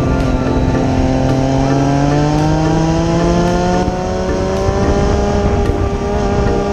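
Sport motorcycle engine under way, its pitch climbing slowly for the first few seconds as it accelerates, then holding steady, over a steady rush of low noise.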